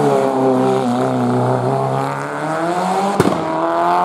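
Mitsubishi Lancer Evo IX hill-climb car's turbocharged four-cylinder engine pulling low through a corner, then revving up steadily as the car accelerates away. A single sharp crack comes about three seconds in.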